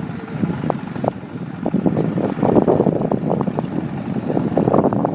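Wind buffeting the microphone over the buzz of a model plane's nitro glow engine in flight.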